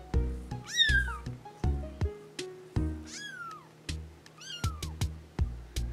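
Kittens meowing: three high-pitched meows that fall in pitch, about a second in, around three seconds in and near the end, over background music of plucked notes at about two a second.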